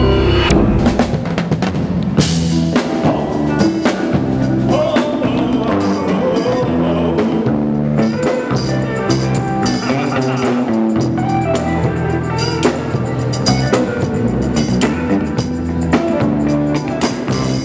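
Gospel band playing an instrumental intro: a drum kit keeps the beat over a bass line and sustained chords. Brighter cymbals come in about eight seconds in.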